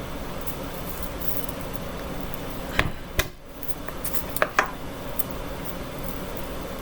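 Steady room hum with a few sharp knocks and clicks of kitchen items on a hard counter, two close together about three seconds in and two more around four and a half seconds.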